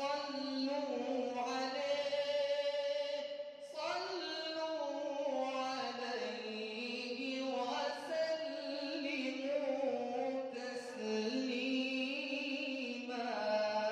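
Islamic nasheed singing: a voice holds long, ornamented, wavering notes in slow phrases of about three to four seconds each.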